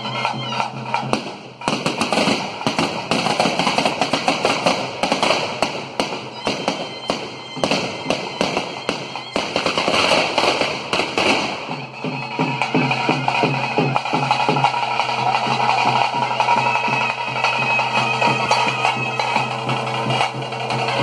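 Ritual drumming on chenda drums for a Theyyam performance, beating steadily. From about a second and a half in until about twelve seconds in, a dense crackling of firework fountains spraying sparks covers the drums; after that the drum rhythm comes through more clearly.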